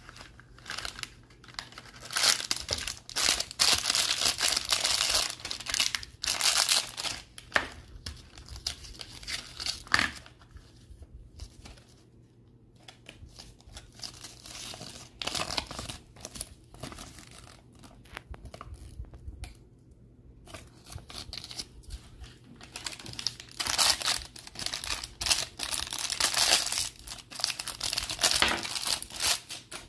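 Plastic toy wrappers crinkling and being torn open by rubber-gloved hands, in bursts with short quiet pauses between.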